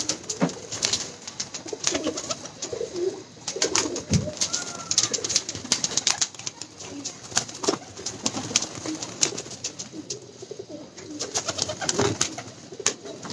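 Domestic breeder pigeons cooing over and over in a loft, with many short, sharp clicks scattered among the calls.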